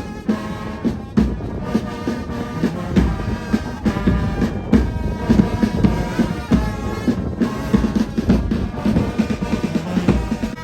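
Background music with a steady drum beat and a deep bass drum.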